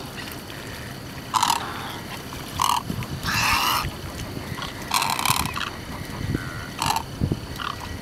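Wading birds giving a series of short, harsh, raspy croaks, about six calls, the longest a little after three seconds in.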